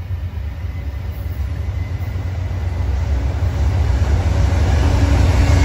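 Amtrak passenger train approaching at speed, its low rumble growing steadily louder.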